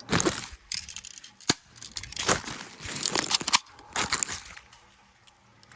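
Irregular crunching and rustling, with one sharp click about a second and a half in, fading towards the end.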